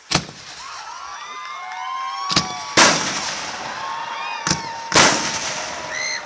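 Aerial fireworks: a bang at the start, then several whistles curving in pitch, then sharp cracks each followed by a loud shell burst, the bursts nearly three seconds in and about two seconds later. Another short whistle comes near the end.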